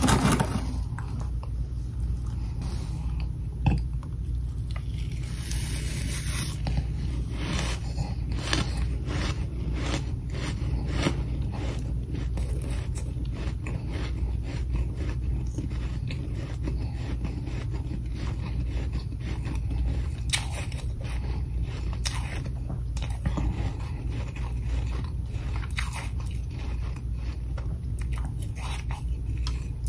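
Mouthfuls of powdery freezer frost being crunched and chewed close to the microphone, a long run of crisp crunches, over a steady low hum.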